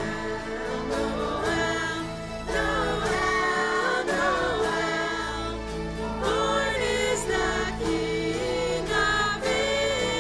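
Choir singing a song with band accompaniment and a steady drum beat.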